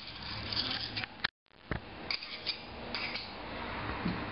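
Light clicks and scraping as the furler's aluminium head swivel body is worked against a paper pad to take out its bearing balls. The sound cuts out completely for a moment a little over a second in.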